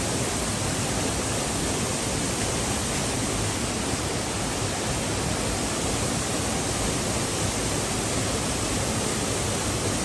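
Steady rushing of a rocky mountain stream's water cascading over boulders.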